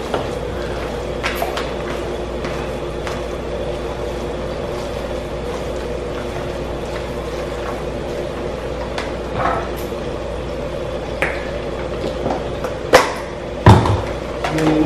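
A spoon stirring and mashing soft boiled potatoes in a plastic bowl, with a few light knocks of the spoon and two louder knocks near the end, over a steady kitchen hum.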